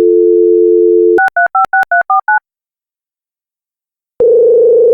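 A telephone dial tone, then a quick run of about seven touch-tone (DTMF) dialing beeps. After a short silence, a buzzy ringing tone sounds for about a second and a half: a call being placed.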